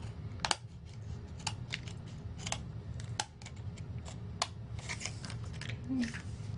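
Small craft scissors snipping through the paper backing of a sheet of adhesive rhinestones, cutting it into strips: a series of short, sharp snips, roughly one a second.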